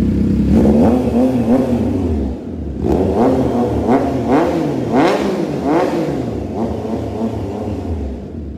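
Triumph Trident 660's inline three-cylinder engine breathing through a Drift Xaust full aftermarket exhaust, revved with repeated throttle blips. One longer rev comes first, then a quick string of about five sharp rises and falls, with a deep bass note, before it settles back to idle near the end.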